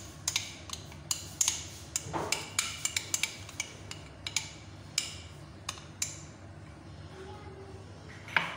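A metal spoon clinking and scraping against a glass bowl while thick cocoa cake batter is scraped out into a steel cake tin. The clinks come irregularly, two or three a second, and thin out after about six seconds.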